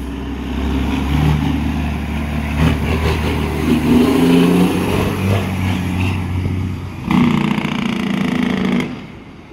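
Detroit Diesel Series 60 12.7-litre inline-six diesel in a Western Star semi tractor, running as the truck drives past close by and moves off, its engine note shifting in pitch as it goes. About seven seconds in, a louder rush of noise lasts nearly two seconds.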